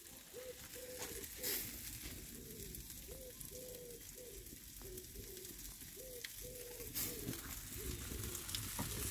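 Pigeon cooing, a repeated run of short, low hoots in phrases, with two sharp clicks, one about a second and a half in and one at about seven seconds.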